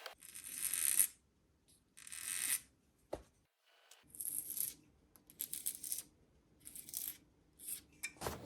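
Short strokes of hand filing or sanding on a small piece, about eight of them with brief pauses between, each a scratchy hiss: flat spots are being worked onto the bottoms of the pieces so they don't roll.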